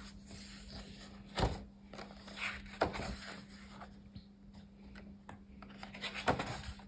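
Pages of a Moleskine mixed-media sketchbook being turned by hand: paper swishes and soft flaps, three or so, about a second and a half in, around three seconds in, and near the end. A faint steady hum lies underneath.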